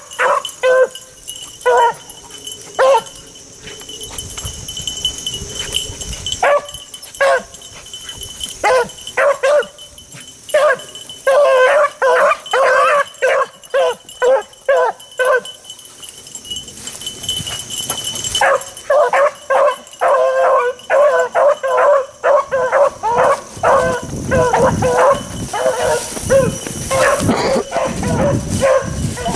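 Beagle hound barking in quick runs of short barks with brief pauses, the longest and densest run in the second half: a hound giving tongue while working a scent trail.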